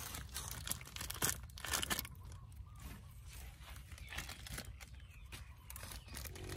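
Hands pulling mushroom clusters off plastic grow bags: irregular crinkling of the plastic bags and soft tearing as the clusters come away.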